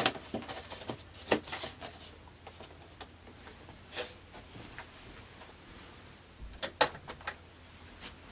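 Carded action figures being handled: scattered light taps and clicks of cardboard and plastic blister packaging, with a pair of sharper clicks close together near the end.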